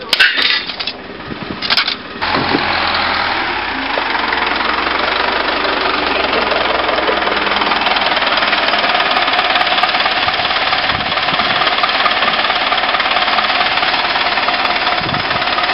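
A few knocks in the first two seconds, then the engine of a heavy wheeled tractor running close by, loud and steady.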